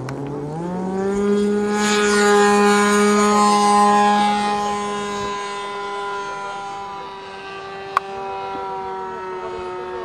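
Magnum 10cc glow engine of an RC model plane at full throttle on take-off: its pitch rises in the first second to a steady high whine, loudest a couple of seconds in, then slowly fades as the plane climbs away. A single sharp click near the end.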